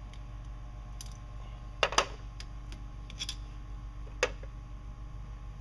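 Hand tools clinking while the nut on the shift cable bracket is worked loose: a few short sharp clicks, the loudest pair about two seconds in, a smaller cluster about three seconds in and a last one about four seconds in.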